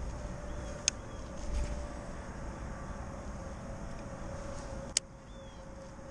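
Sharp clicks from a fishing rod and reel being handled on a plastic kayak, one about a second in and one near five seconds, over a steady low rumble with a faint hum; the rumble drops after the second click.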